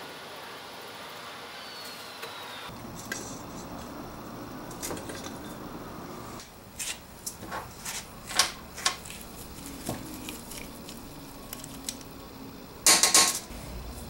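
Light metallic clicks and clinks of a socket driver and small steel parts of a hydraulic bottle jack being handled on a bench, with a louder clatter of a few quick knocks near the end.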